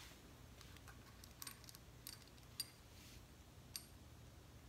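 Faint, scattered metallic clicks and ticks of a small screw and tools being handled during engine assembly, about six light clicks over a few seconds.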